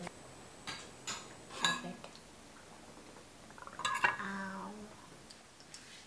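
Cutlery and ceramic dishes clinking at a dinner table: a few sharp, ringing clinks, the loudest about a second and a half in and about four seconds in.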